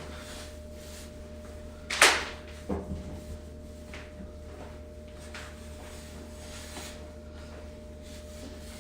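Faint strokes of a microfiber cloth wiping a stainless steel refrigerator door, with one loud sharp knock about two seconds in and a couple of lighter knocks just after.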